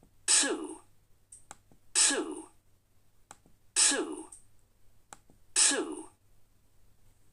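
Recorded British-English dictionary pronunciation of the word "sue" /suː/, played four times about two seconds apart. Each one is a hissing s followed by a falling vowel, and a faint mouse click sets off each playback.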